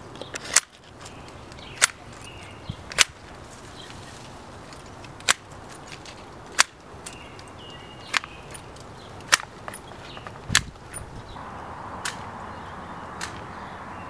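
Manual long-handled hedge shears snipping through shrub branches: about a dozen sharp, separate snips, one every second or two.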